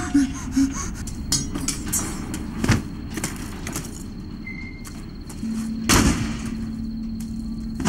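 Clattering knocks of junk being tossed onto a burning pile, with one loud crash about six seconds in. A low steady drone comes in shortly before the crash.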